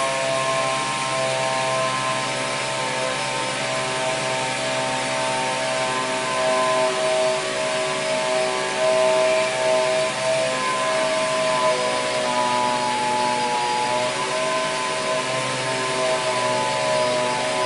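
Workshop machinery running steadily: a broad mechanical hiss with several whining tones that hold and now and then shift to a new pitch.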